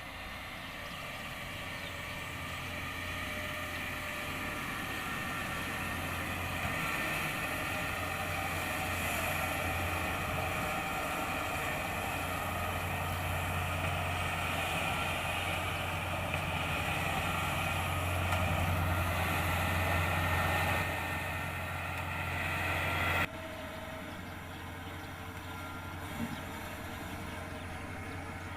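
Kubota DC-70 Plus combine harvester running, a steady diesel engine drone that slowly grows louder, then drops abruptly to a lower level about 23 seconds in.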